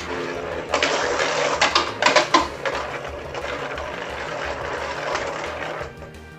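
Beyblade tops spinning and scraping in a plastic stadium, with a flurry of sharp clashes between them about two seconds in. The spinning noise dies away near the end as the battle finishes.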